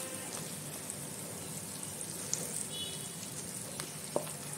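Oil frying with a soft steady sizzle in a nonstick pan as thick ground urad dal paste is scraped into it with a wooden spatula, with a couple of light knocks of the spatula.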